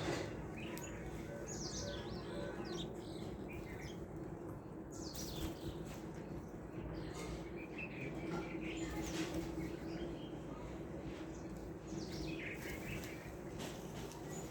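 Several small birds chirping and calling in short, scattered notes over steady background noise.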